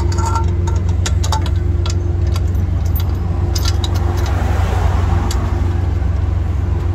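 A heavy truck engine idling with a steady low hum, with scattered metallic clicks and taps, mostly in the first half, from hand work on the rear spring brake chamber as its brake is released by the release bolt for towing.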